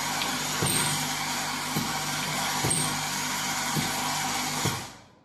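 Desktop dropper-bottle filling and capping machine running: a steady hum and hiss from its vibratory cap-feeding bowl, a knock about once a second as the star wheel indexes, and a short hiss of air from the pneumatic cylinders every couple of seconds. The sound fades out near the end.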